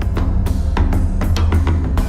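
Background music with a driving drum beat, about four hits a second over a heavy, steady bass.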